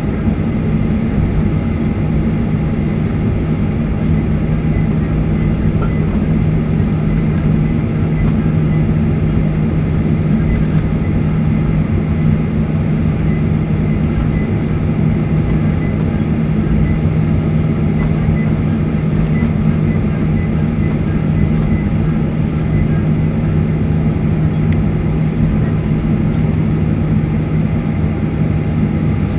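Steady drone of a Boeing 737-800's CFM56-7B jet engines at taxi idle, heard inside the cabin as the airliner taxis, with a few low held hum tones.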